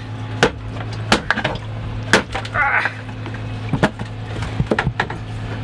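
Flat pry bar jabbing and levering at the waterlogged glove box of a sunken Ford Escort: a string of sharp knocks and cracks, about ten in all, several in quick pairs.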